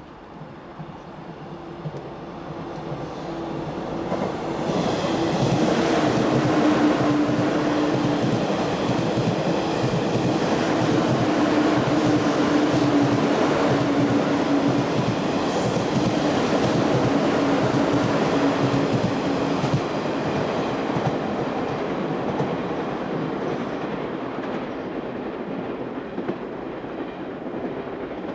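EF66-hauled freight train passing: wheels clatter over the rail joints, swelling over the first five seconds or so and slowly fading through the last third. A steady humming tone runs under the clatter, sliding slightly lower in pitch and stopping about two-thirds of the way through.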